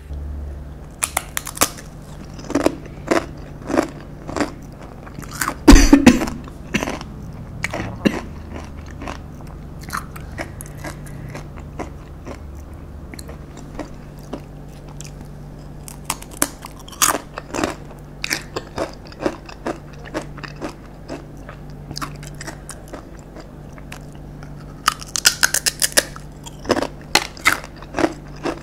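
Close crunching and chewing of a crisp Makiq melinjo chip (a one-chip-challenge cracker), bitten and then chewed in irregular crunches. The loudest crunch comes about six seconds in, and a quick run of crunches comes near the end. A faint steady hum sits underneath.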